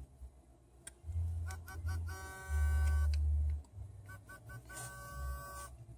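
A short electronic tune, played twice: three quick notes followed by a held note, over a deep low hum.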